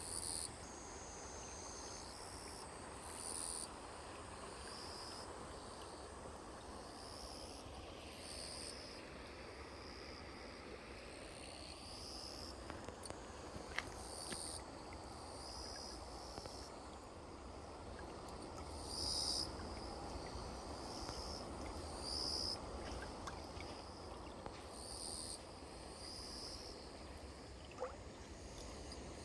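Grass insects calling in short, high-pitched bursts that repeat every second or two, over a steady low rushing noise.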